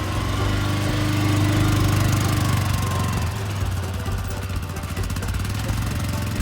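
BMS Stallion 600 UTV engine running as the machine drives about with its snowplow; the engine swells a little about a second in and eases off around four seconds.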